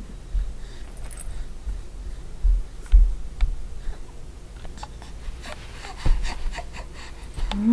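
Handling noise: soft rustling of a plush toy and crib bedding, with scattered small clicks and scrapes and a few low bumps, the clicks coming more often in the last couple of seconds.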